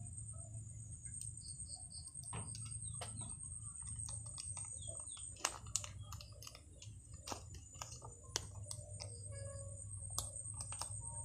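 Small plastic sauce and oil sachets crinkling and ticking as they are squeezed out and torn open by hand, with a few sharp clicks. An electric fan hums steadily underneath.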